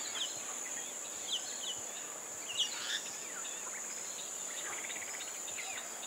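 Steady high-pitched drone of insects, with scattered short bird chirps, several of them quick falling notes.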